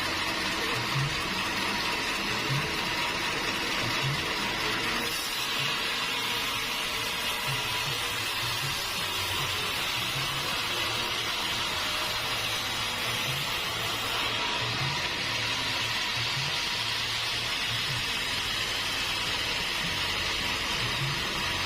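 Sawmill saw cutting through a large teak log: a steady rushing hiss, with faint irregular low thuds underneath.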